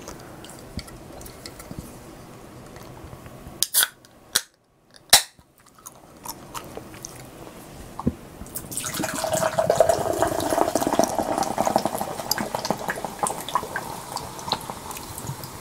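Two sharp clicks about four and five seconds in, then a carbonated Hallabong sparkling drink poured into a glass, splashing and fizzing with crackling bubbles that slowly die down.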